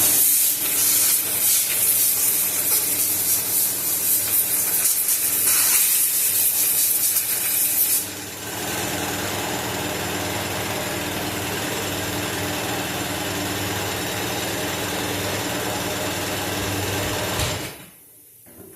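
Noisy air compressor running while a blow gun hisses air through a cabin air filter, blowing the dust out. About eight seconds in the blowing stops while the compressor keeps running, then the compressor shuts off near the end.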